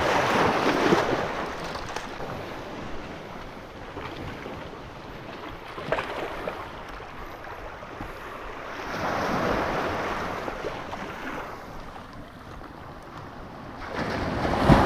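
Ocean surf washing up the beach, the wash swelling three times, with wind on the microphone. One short sharp click about six seconds in.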